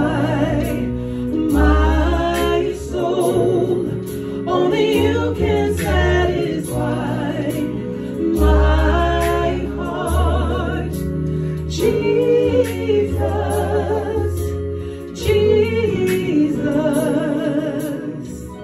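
Live gospel worship singing: a female lead voice with other singers, long held notes with vibrato, over a Yamaha Motif synthesizer keyboard playing sustained chords and bass notes.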